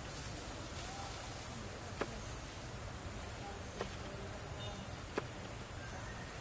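Steady high-pitched insect chorus buzzing without a break, with three faint sharp clicks spaced through it.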